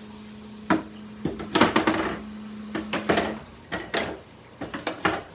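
Hand tools and small items being handled and set down in a plastic Festool Systainer tool case: a run of sharp clicks and clattering knocks.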